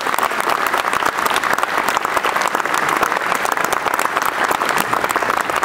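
Audience applause: a steady round of clapping from many people.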